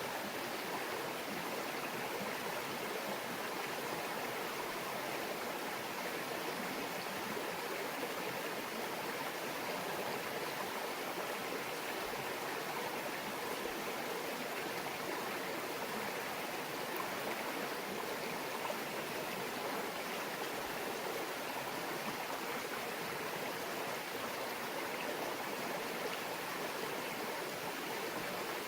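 Small brook babbling steadily, an even, unbroken rush of flowing water.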